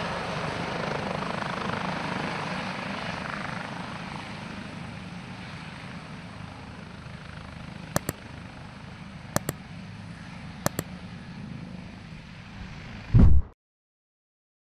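Airbus H145M helicopter with twin Turbomeca Arriel 2E turboshaft engines, its steady engine and rotor noise slowly fading. In the second half there are three sharp double clicks, then a loud low thump, and the sound cuts off abruptly.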